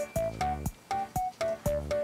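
Background music: a keyboard melody of quick, evenly spaced notes, about four a second, over a bass line.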